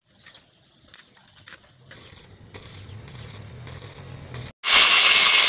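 A few light clicks and a faint low hum, then, about 4.7 s in, a stick welder's arc strikes on a steel wheel rim and runs with a sudden loud, steady crackling sizzle.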